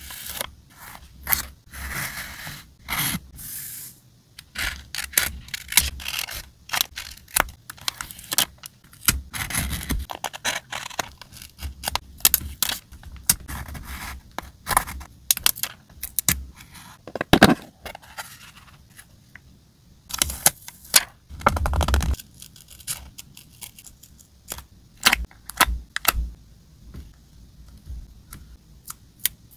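Paper cut-outs and stickers being handled on a journal page with metal tweezers, making irregular crinkles, small taps and scraping rustles. There are longer rubbing strokes about a third of the way in and again about two-thirds through, and one sharp tap a little past halfway stands out as the loudest.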